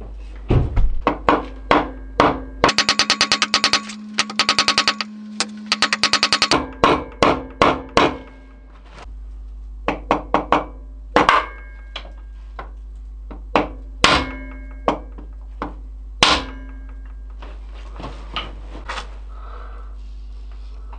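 Hammer blows knocking a seized gearbox input shaft out of a quad's transmission case, with metallic ringing. A few seconds of rapid rattling strikes about three seconds in, then single blows spaced a second or more apart.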